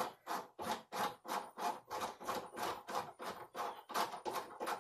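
A threaded connector being hand-twisted into the top of a cat-tree post, making a rhythmic scraping and rubbing about three to four strokes a second.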